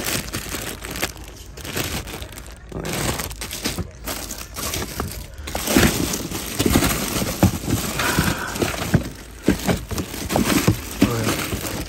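Toys in clear plastic bags crinkling and knocking together as a hand rummages through a bin of them. The knocks come irregularly and grow busier and louder about halfway through.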